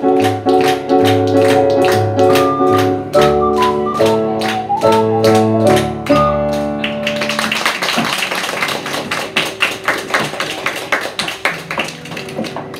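Alto C ocarina playing a melody over electronic keyboard chords and a steady beat, ending its piece about six seconds in; applause then takes over and slowly fades.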